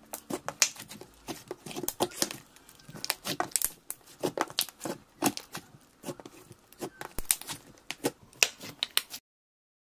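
Thick white slime being pressed, pinched and stretched by hand, giving a stream of irregular sticky clicks and crackles. It cuts off suddenly near the end.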